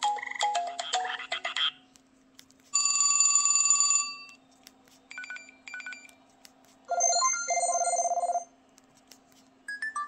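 An LG Revere phone's speaker previewing its preloaded ringtones one after another. First comes the end of a melodic frog-croak ringtone, then an old-style telephone bell ring for about a second, then two short beep patterns and a soft two-part tone. A new melody starts near the end, with faint clicks in the gaps.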